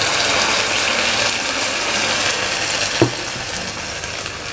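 Water poured into a hot wok of oil-fried chilies and shallots, hissing and sizzling loudly as it hits the hot oil. A single knock about three seconds in, after which the sizzle is quieter.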